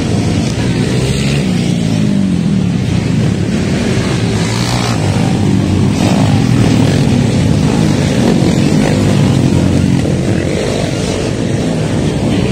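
Dirt-bike engines revving on a motocross track. Their pitch rises and falls over and over with the throttle as the bikes ride past.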